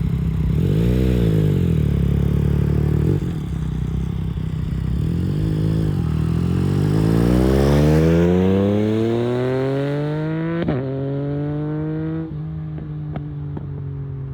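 A 2021 Yamaha MT-09's three-cylinder engine through an Akrapovič race exhaust. It idles with two quick throttle blips, then revs steadily higher for several seconds. The pitch drops slightly twice at sharp clicks, as at gear changes, and it settles into a steadier note with a few light crackles.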